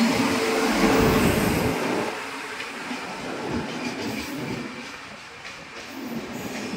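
Indian Railways WAP-7 electric locomotive passing with a hum, loudest in the first two seconds, then its passenger coaches rolling by with a steady rumble and a rhythmic clatter of wheels over rail joints.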